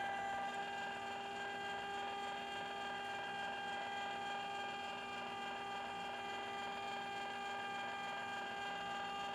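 Electric ice cream maker running with a steady motor hum as its paddle churns a batch of ice cream that is still soft.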